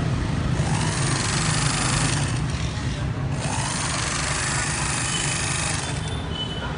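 Industrial overlock (serger) sewing machine running steadily, stitching and trimming along the edge of a strip of fabric.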